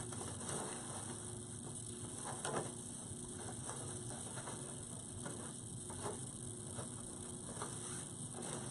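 Ribbon bow being handled as its loops are pulled open: faint rustling with a few light clicks scattered through, over a steady faint hum.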